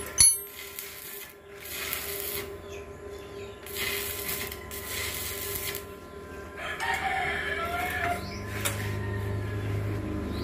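A sharp click just after the start, then a rooster crowing once about seven seconds in. A low steady hum sets in near the end.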